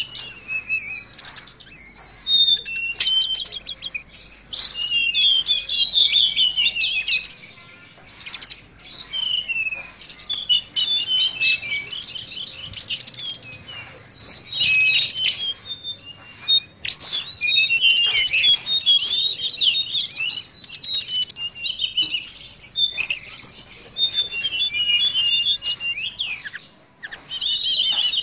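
Tledekan laut, a blue flycatcher kept as a cage songbird, singing a long, fast, varied warbling song of high chirps and trills, broken a few times by brief pauses.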